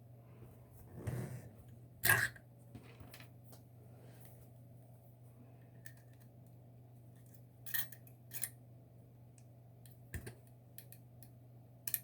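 Sharp metallic clicks and clinks of a Tann detector lever lock being worked with its key, scattered and irregular, the loudest about two seconds in and a few more later on.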